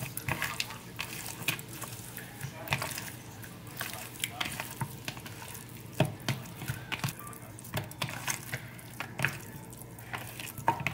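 Hands rubbing and turning raw chicken pieces in a dry spice rub inside a plastic bowl: irregular wet squelches, slaps and small knocks against the bowl.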